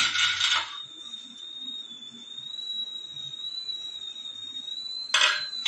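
A steady, thin, high-pitched whistle that wavers slightly in pitch. Stainless-steel idli plates clatter against each other at the start and again near the end.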